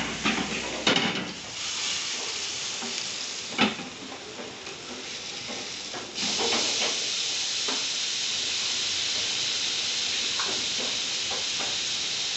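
Chicken steak sizzling in a hot ridged grill pan, with a few clanks early on and one sharp knock a few seconds in. About halfway through, as the steak is turned with tongs, the sizzle jumps suddenly louder and stays a steady high hiss.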